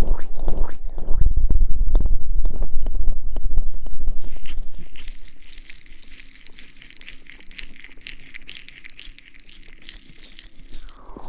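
Aloe vera gel being rubbed and squished over an ear microphone in an ASMR ear massage. For about four seconds it is loud, close rubbing with sticky crackles; from about five seconds in it turns to a much quieter, lighter crackling.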